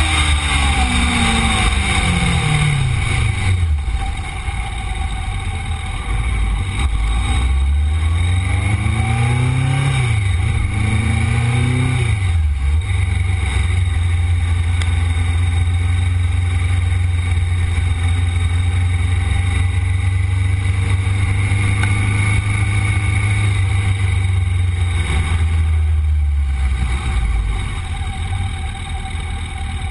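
Motorcycle engine heard from an onboard camera: revs falling as the bike slows over the first few seconds, a few short rises and falls in revs, then a long stretch at steady engine speed that eases off near the end.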